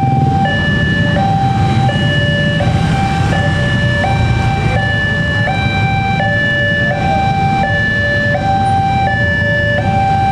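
Electronic railway level-crossing alarm sounding a repeating high-low two-tone chime, about one pair a second, the signal that a train is coming and the crossing is closed. Under it runs a steady low traffic rumble.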